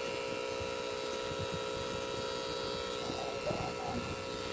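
Cartridge tattoo pen machine running, its motor giving a steady hum.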